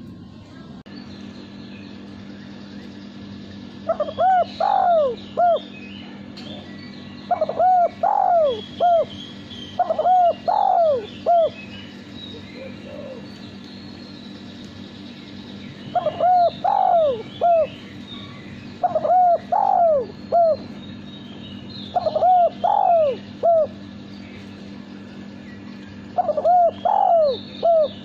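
Male spotted dove cooing. It gives seven phrases, each a short run of rounded coo notes, a few seconds apart, with a longer pause near the middle.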